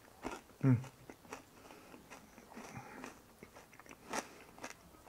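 A person chewing crispy fried pork belly (chicharrón) with small, scattered crunches. A short hummed "mm" of enjoyment comes about two thirds of a second in.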